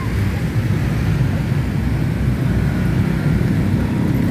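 A steady low rumble, like a vehicle engine, with a faint hum coming in near the end.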